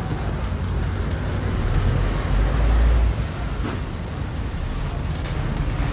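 Stick-welding arc from an INGCO IGBT 315 A inverter welder, crackling and sizzling steadily as the electrode burns against a steel bar. A low rumble runs underneath and swells briefly around two to three seconds in.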